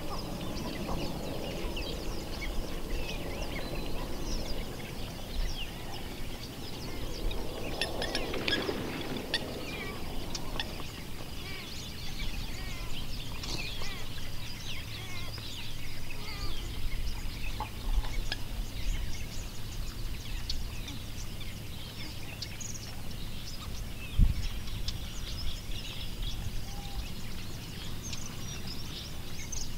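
Small birds chirping over a steady low background hum, with a single dull thump late on.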